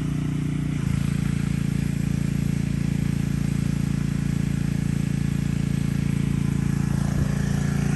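Steady low engine and road drone of a vehicle, as heard from inside while driving.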